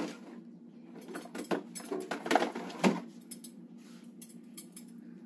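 A plastic drawer being opened and rummaged in, and a gait belt taken out and unrolled: a run of clicks and knocks with light metallic clinks, loudest about two to three seconds in.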